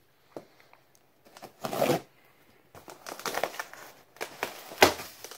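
Cardboard shipping box being handled and cut open: scattered scraping and rustling of cardboard, with a sharp knock near the end.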